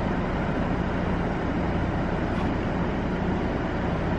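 Steady low mechanical hum over a haze of road-traffic noise, even in level throughout.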